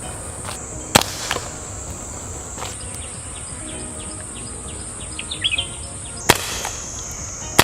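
Two sharp shots from an STI Duty One CO2 BB pistol, one about a second in and the other about five seconds later, with a few fainter clicks after the first. A steady high insect drone runs underneath.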